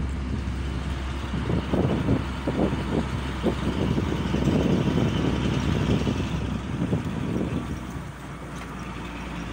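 Goods truck driving, its engine running steadily under an uneven low rumble, heard from the open cargo bed. The rumble eases a little near the end.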